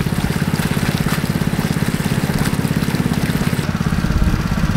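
Honda GP160 single-cylinder four-stroke engine running steadily at a constant speed, driving a water pump, with a rapid, even chugging beat.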